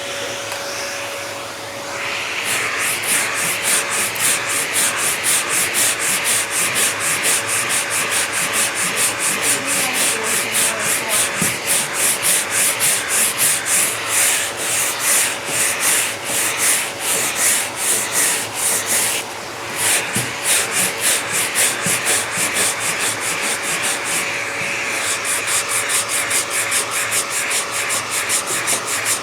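Hand sanding of body filler on a car body panel: sandpaper rubbed back and forth in steady rhythmic strokes, about two to three a second, with a brief pause about two-thirds of the way through.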